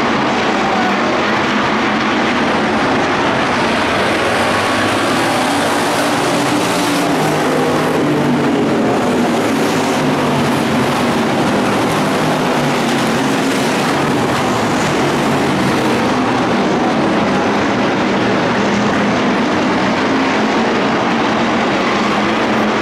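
Several IMCA Hobby Stock dirt-track race cars running hard around the oval, a loud, steady engine drone whose pitch wavers up and down as the cars pass and go into the turns.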